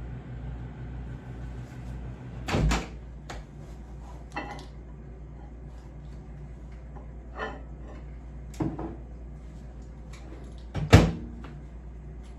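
Microwave oven running with a steady low hum as its turntable turns, broken by several sharp knocks and clunks, the loudest about eleven seconds in.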